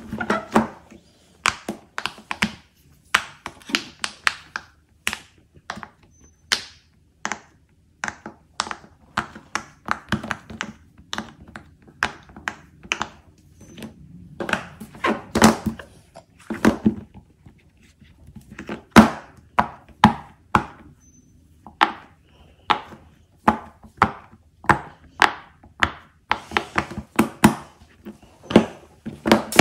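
Silicone pop-it fidget toys being handled, pressed and set down on a tabletop: a long run of short, sharp taps and thuds at irregular intervals, often several in quick succession.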